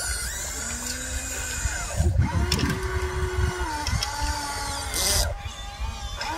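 Electric motors of a Huina 1593 RC excavator whining as the boom, arm and bucket are worked, the pitch stepping up and down as each motion starts and stops. A short splash of water running off the bucket about five seconds in.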